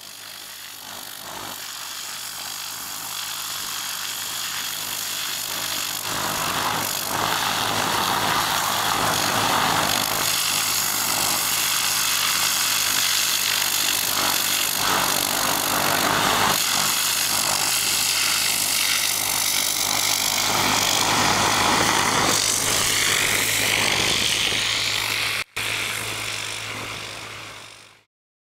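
High-pressure water jet blasting stone quay edging: a loud, steady hiss over the low, even hum of the washer's pump engine. The sound swells in over the first few seconds, drops out for an instant about 25 seconds in, and fades out at the end.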